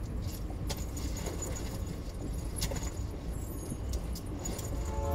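Steady low rumble of a moving passenger train carriage, with a few scattered light clicks and rattles.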